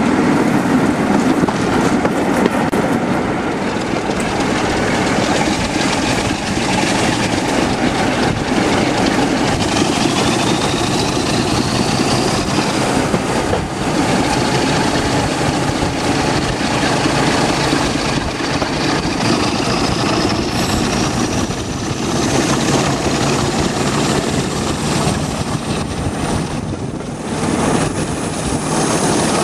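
A preserved British Rail diesel locomotive working hard at the head of a moving passenger train, heard from an open coach window, with a loud steady mix of engine, wheel and rail noise. A faint high whine climbs in pitch about a third of the way in and again in the second half.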